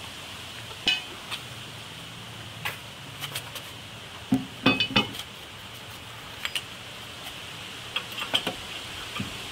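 Steel hitch-mounted rack clinking and clanking against the trailer hitch receiver as it is handled and fitted: scattered metal knocks, with a cluster of louder clanks between four and five seconds in and a few more about eight seconds in.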